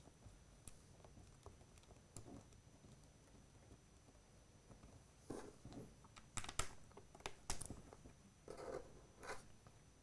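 Faint hand-handling sounds of small hardware: light clicks and rattles as machine screws, nuts and a power receptacle are fitted by hand to a clear plastic printer side panel. The sounds come as scattered short clicks, mostly in the second half.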